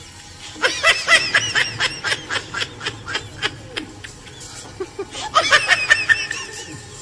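A person laughing in quick, high-pitched bursts, about six a second. One long bout runs through the first half, and a shorter one comes about five seconds in.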